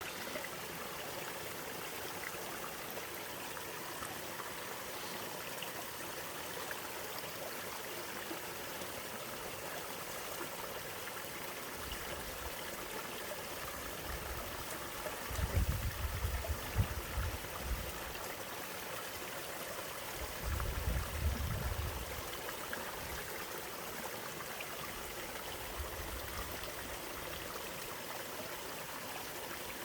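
Mountain valley stream flowing steadily, an even rush of water. Twice around the middle a low rumble swells up under it for a couple of seconds.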